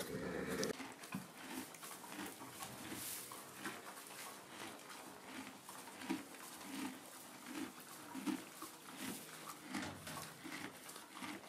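Horse chewing hay: a faint, regular crunching of munching, about three chews every two seconds.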